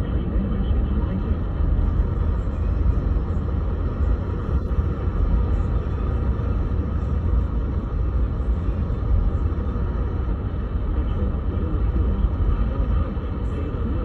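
Steady low rumble and hiss of noisy AM radio reception, with no clear voice or alert tone coming through.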